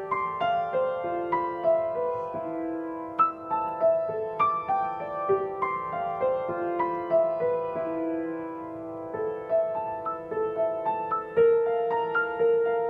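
Piano played by a young child, her own piece: a slow, gentle melody of overlapping held notes in the middle register, a new note about every half second.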